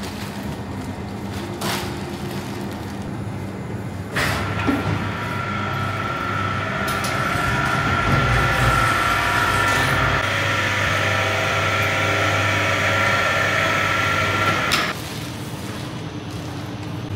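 Steady hum of refrigeration machinery from walk-in cold-store compartments, with a louder whirring fan and a steady whine that start suddenly about four seconds in and stop sharply near the end. A few knocks from the cold-store doors and bags of meat being handled.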